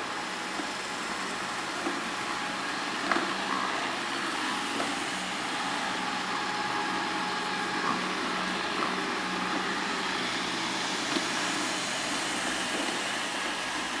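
Yeedi K600 robot vacuum running: a steady whir of its suction fan and brushes, with a few faint ticks.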